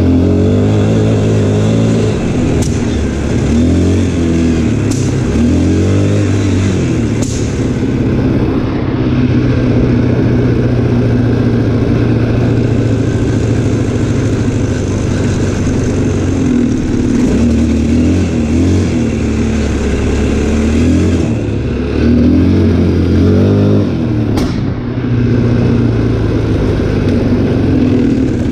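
ATV engine running under way, its pitch rising and falling with the throttle in the first few seconds and again later, steadier in between. A few brief sharp clicks are heard over it.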